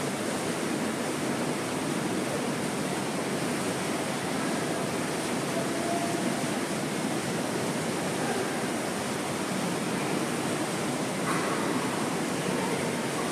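Steady rushing of churning water from a hot tub's jets and bubbles, an even, unbroken wash of noise.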